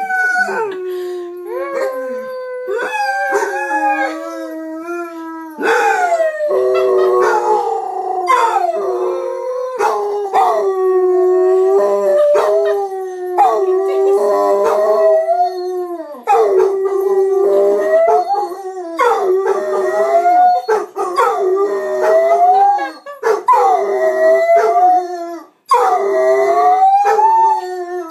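Basset hounds howling together: long, wavering howls that overlap and rise and fall, with short breaks every few seconds.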